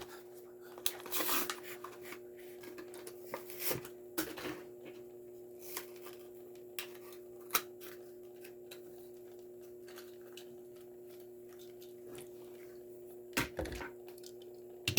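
Scattered crackles and clicks of a small toy-car mystery package being torn open and handled by hand, with a louder cluster near the end, over a faint steady hum.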